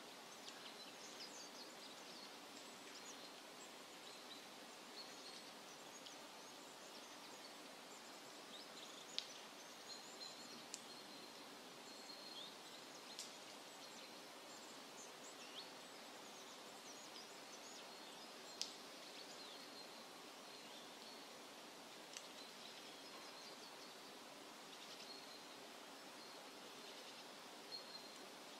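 Near silence: faint outdoor ambience with small birds chirping in short, high notes scattered throughout, and a few brief louder chirps or ticks.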